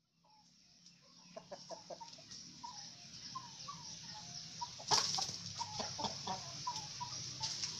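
Free-range village chickens (ayam kampung) clucking, with many short falling calls repeating irregularly, starting about a second in. A sharp knock stands out about five seconds in.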